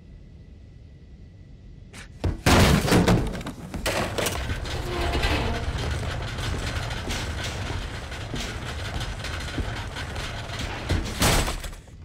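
Movie sound effects of a violent struggle. After a low quiet hum comes a sudden loud crash about two seconds in, then a sustained loud noise with a deep rumble and repeated thuds and slams, cutting out just before the end.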